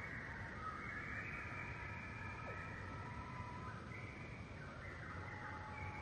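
Many birds calling at once: overlapping, steady held calls that start and stop, over a low background rumble.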